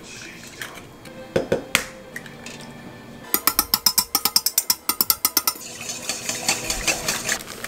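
A wire whisk beating eggs in a stainless steel mixing bowl: a quick run of metallic clicks against the bowl's side for about two seconds. Before it, about a second and a half in, two light knocks of an egg being cracked on the bowl.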